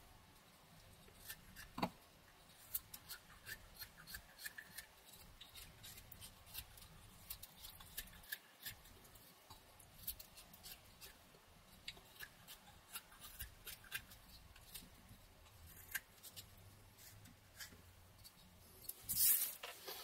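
Rough Rider pocket knife blade slicing thin shavings off a pine stick: a string of short, crisp cuts and scrapes, with a louder, longer scraping cut about a second before the end.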